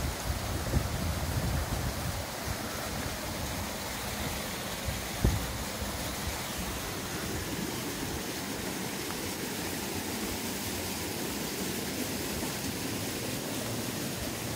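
Steady rush of flowing water from a stream or waterfall, with gusts of wind buffeting the microphone in the first two seconds and a single low thump about five seconds in.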